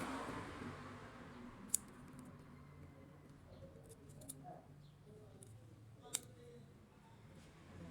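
Scattered light clicks and taps, with two louder sharp clicks, one about two seconds in and one about six seconds in, over a faint low hum.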